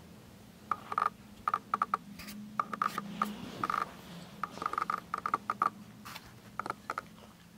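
Norfolk terrier eating dry kibble from a ceramic bowl: several bursts of sharp clinks, each with a short ring, as the kibble and teeth knock against the bowl.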